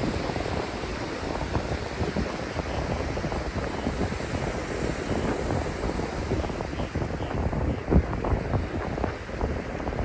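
Small ocean waves breaking and washing up over flat wet sand, a steady rushing fizz of surf, with wind buffeting the microphone. A brief louder bump of wind about eight seconds in.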